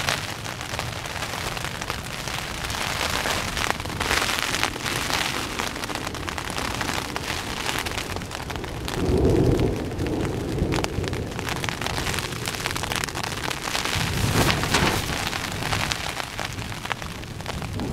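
Rain falling steadily on a tent's fabric, a dense hiss of many small drop hits, with two low rumbles of thunder, about nine and fourteen seconds in.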